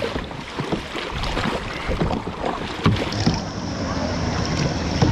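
Kayak paddling on open water: paddle blades splashing and knocking against the hull over sloshing water and wind noise on the microphone. A steady high whine joins about three seconds in.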